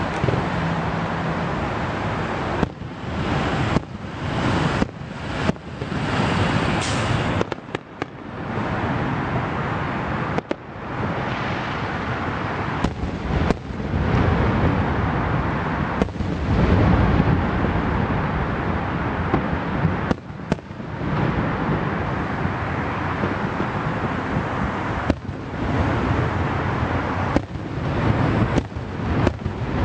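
Fireworks display: a dense, continuous barrage of bursts and crackle, with heavy low booms around the middle. The sound briefly cuts out several times.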